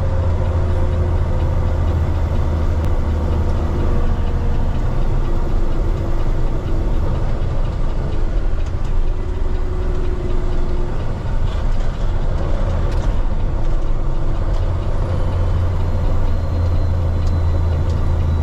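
Peterbilt 389X heavy tow truck's diesel engine heard from inside the cab, a steady low drone as the engine brake and foot brakes slow the truck.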